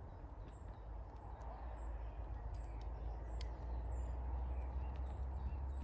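Faint, scattered songbird chirps over a low steady rumble, with a few small clicks.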